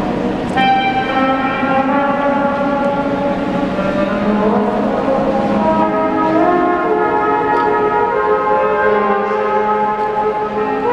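Small live band of trombone, trumpet and other wind instruments playing a tune together, with long held notes that step up and down in pitch.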